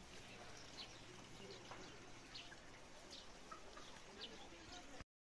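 Faint outdoor ambience with a few short, faint bird chirps. It cuts off abruptly about five seconds in.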